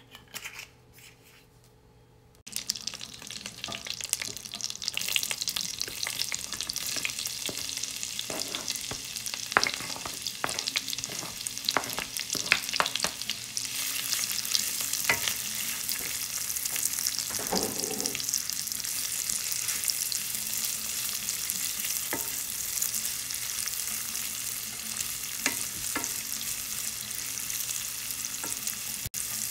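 Sliced onion, carrot and yellow pepper sizzling in hot oil and butter in a frying pan, with a wooden spoon scraping and knocking against the pan as the vegetables are stirred. The sizzle starts suddenly about two seconds in and then holds steady.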